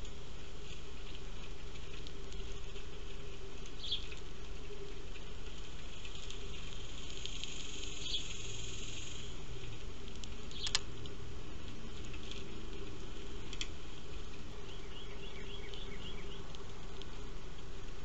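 Small birds pecking seed off a feeder tray, a patter of light taps, with a few short house sparrow chirps and a quick run of chirps near the end, over a steady high insect buzz.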